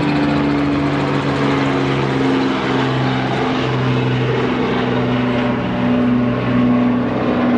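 Small helicopter flying past, its engine and rotor making a steady drone with a slight waver in pitch.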